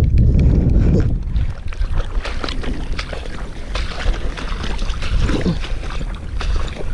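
Wind rumbling on the microphone, with many small clicks and ticks scattered throughout.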